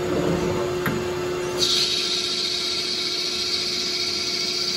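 Metal lathe running with a steady hum and a click about a second in. About a second and a half in, a steady high hiss sets in, plausibly the tool taking a cutting pass on the spinning stock.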